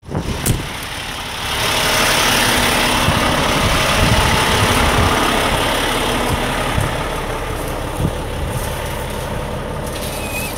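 A truck engine idling with a steady rumble.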